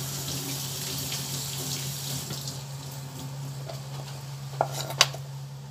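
Kitchen tap running into a sink as something is washed, fading out after about two and a half seconds, over a steady low hum. Near the end come two sharp knocks of a knife on a chopping board.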